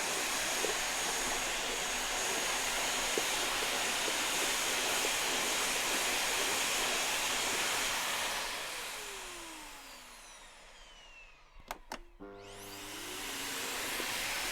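Vacuum cleaner motor running with a steady hiss, then winding down with a falling whine as it is switched off. After a few clicks it starts again, spinning back up with a rising whine to full running noise.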